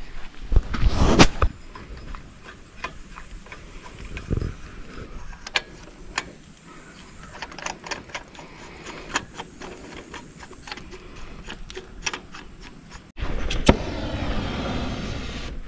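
Scattered sharp clicks and taps of hand tools working at a trailer wheel's lug nut, which spins on its stud and will not come off. About thirteen seconds in the sound cuts abruptly to a louder steady noise with a falling tone.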